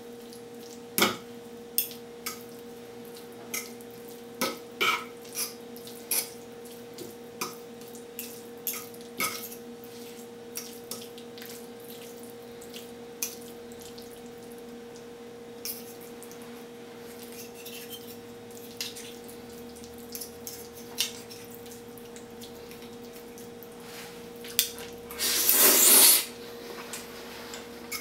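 A metal fork and spoon clink and scrape against a ceramic plate while spaghetti is twirled in a creamy bean sauce. Scattered light taps and clicks give way to a longer, louder scrape a few seconds before the end. A steady low hum runs underneath.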